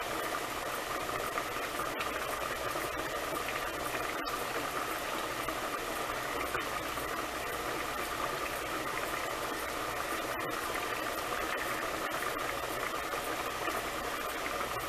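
Pot of lima beans and ham hocks at a rolling boil, the liquid bubbling steadily under a lid left partly open.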